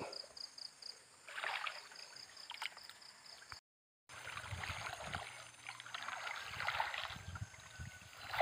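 Light water sounds, then, after a short gap, a person wading through a shallow river, the water swishing and splashing around the legs.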